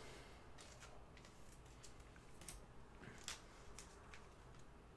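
Faint, sparse clicks and rustles of trading cards and packs being handled, with long quiet gaps between them.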